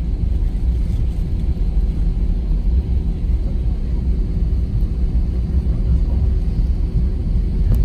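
Airbus A320 cabin noise while taxiing: a steady low rumble from the idling jet engines and rolling wheels, with a faint steady hum underneath. A short click right at the end.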